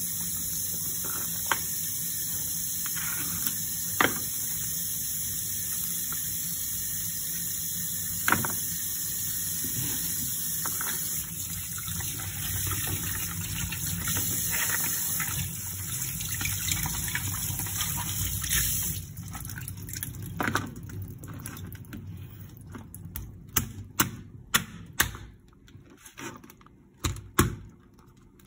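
Kitchen tap running into a stainless-steel sink while crabs are washed, with a few sharp clicks of shell being handled. The water stops about two-thirds of the way in, followed by a run of sharp knocks of a knife chopping crab on a wooden cutting board.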